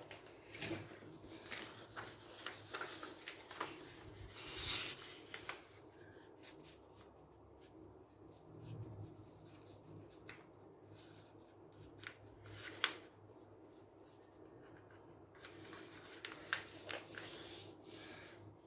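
A sheet of paper rustling and rubbing in irregular bursts as hands fold it and smooth it flat, with a sharp tap about two-thirds of the way through.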